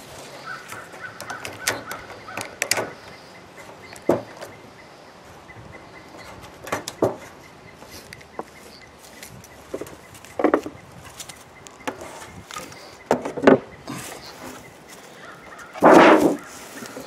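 Beekeeping hive being opened by hand: the buckles and webbing of ratchet straps clicking and rustling, then the hive's top cover knocking and scraping as it comes off, with a louder knock about sixteen seconds in.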